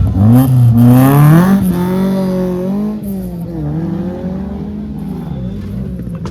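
A rally car's engine accelerating hard. Over the first two seconds the revs climb and drop back with each quick gear change, then the engine sound fades as the car pulls away.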